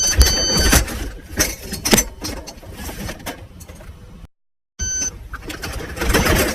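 A high-pitched electronic beep sounds in short bursts a few times, over the rattle, clunks and knocks of items being handled in a box. The sound cuts out completely for about half a second midway.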